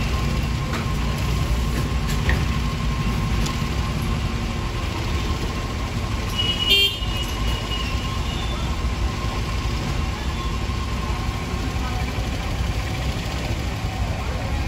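Steady low rumble of vehicle engines and traffic with a thin steady whine, and one short vehicle horn toot about seven seconds in.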